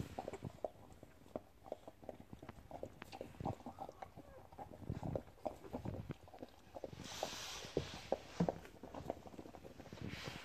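Irregular wet clicks and smacks of a mother dog's mouth as she licks and chews after whelping, with a brief rustle on the bedding about seven seconds in.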